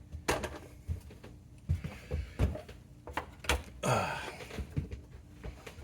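Irregular knocks, clicks and clunks of an oscilloscope's chassis and circuit board being handled and worked loose, with a short scraping rustle about four seconds in.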